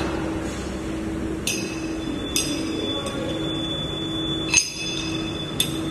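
SZGH-36J CNC lathe running with a steady hum, broken by four sharp metallic clinks that ring briefly, the loudest about two-thirds of the way through.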